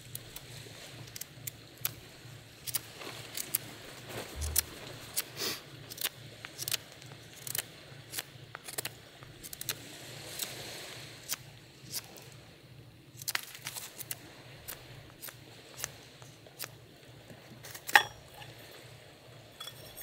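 Knife blade carving a small wooden stick: a series of short, sharp shaving cuts at an uneven pace, one or two a second, with one louder click near the end.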